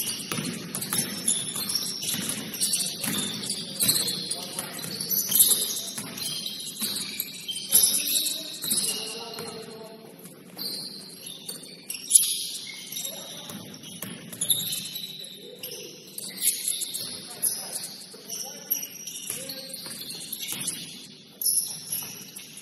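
Basketball game sounds: rubber-soled sneakers squeaking in short, high chirps on the hardwood court, with a few sharp knocks of the ball and scattered players' voices.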